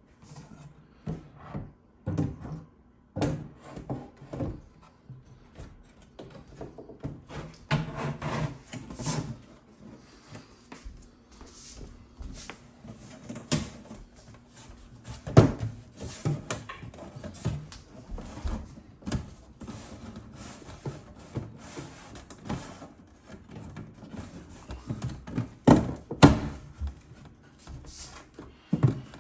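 Irregular knocks, clunks and scraping of wooden bench panels and parts being handled and fitted together during flat-pack assembly, with two louder knocks about halfway through and near the end.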